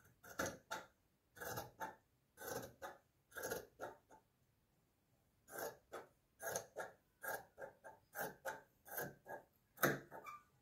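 Large steel dressmaker's shears cutting through lining fabric on a table: a run of crisp snips, spaced about one a second at first, then after a short pause about four seconds in, coming quicker, two to three a second.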